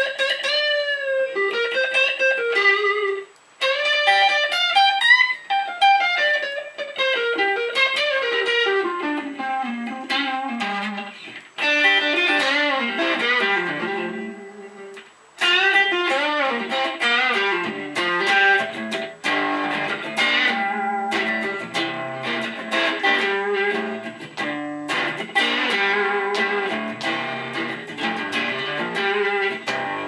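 Stratocaster electric guitar playing blues lead phrases of single notes with string bends, through an overdrive pedal and a delay, with short pauses between phrases.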